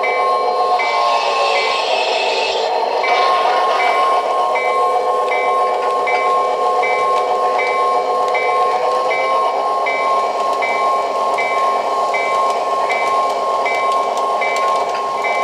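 O-gauge model train running on three-rail track with a steady electronic running hum, while a bell rings about two and a half times a second. In the first couple of seconds the bell stops and a hiss sounds; the bell starts again about three seconds in.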